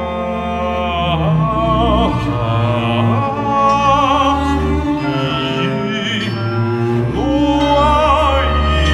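Contemporary ensemble music with a sung voice wavering in a wide vibrato over a sustained low drone and held high tones. The voice comes in about a second in and swells again near the end.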